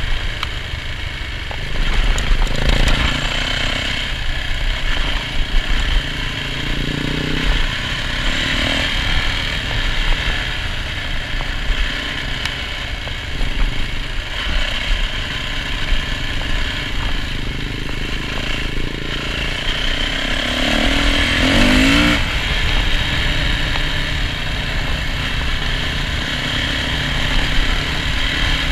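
Yamaha off-road motorcycle running along a dirt trail, its engine rising and falling with the throttle, with a short rising rev a little past two-thirds of the way through.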